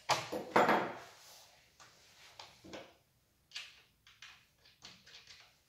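A metal combination wrench clattering down onto a wooden workbench, a quick run of hard knocks in the first second. Short clicks and knocks follow as hands handle the chainsaw's bar and chain.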